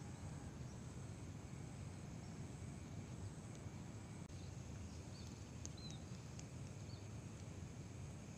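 Pond-side ambience: a steady high trilling of insects, with a few short bird chirps in the second half, over a low steady rumble.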